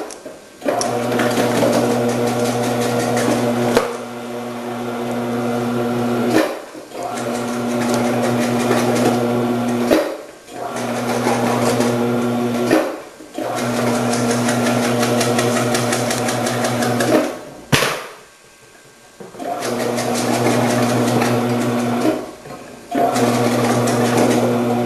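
Electric motor of a commercial vegetable cutter running with a slicing disc as peppers are fed through, a steady hum with a rapid rattle of cutting. It stops for a moment about five times and starts again each time.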